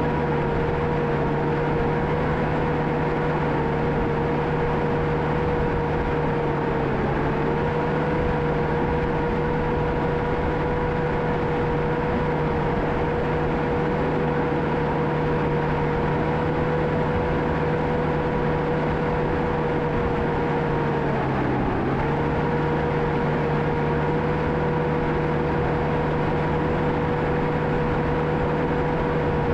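John Deere 650K crawler dozer's diesel engine running steadily, its pitch dipping briefly twice, about seven seconds in and again about two-thirds of the way through.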